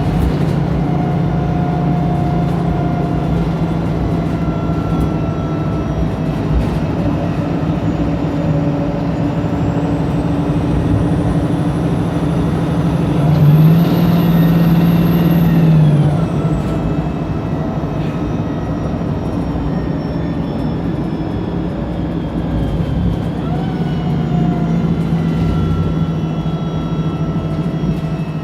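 Wright Pulsar single-deck bus running on the road, heard from inside the saloon: a steady engine and driveline drone with rattles. About halfway through, the engine note and a high whine rise into a louder stretch of two or three seconds, then fall back.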